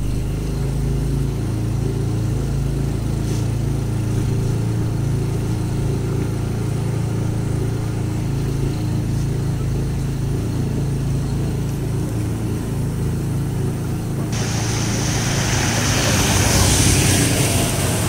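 Motorboat engine running steadily at low speed. About 14 seconds in, a loud rushing hiss of water and wind joins it as the boat picks up speed and throws a wake.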